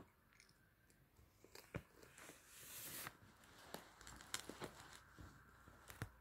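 Near silence: room tone with a few faint clicks and a soft rustle about two and a half seconds in.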